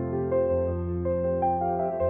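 Background music: soft, slow piano-like keyboard notes with sustained tones.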